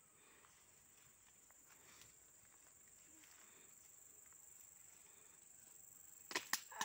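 Near silence with a faint, steady high-pitched drone of insects. Three sharp clicks come close together near the end.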